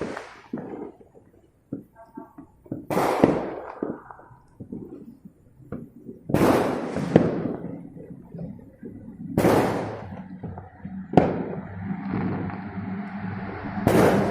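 Fireworks going off: about six loud bangs at uneven intervals, each trailing off in an echo, with smaller pops and crackles between.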